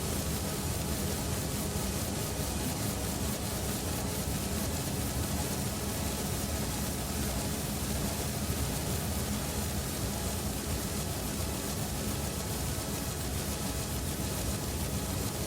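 A steady, unchanging wash of hiss-like noise with a low hum underneath.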